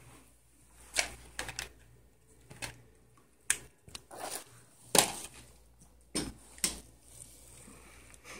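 A string of sharp clicks and taps from handling plastic medical supplies, a syringe among them, on a sterile drape, with soft rustling in between.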